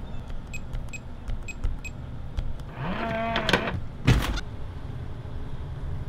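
Lockly Secure Pro smart deadbolt: a few short, high keypad beeps as a PIN is tapped in, then the lock's motor whirs up and runs for under a second to drive the deadbolt, ending in a single sharp clunk.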